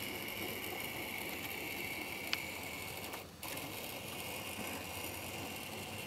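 Small electric motor of a Graham Farish N gauge Class 60 model locomotive running steadily, its wheels and the tank wagons rolling over the track. A single sharp click about two seconds in, and the sound dips away for a moment a little past halfway.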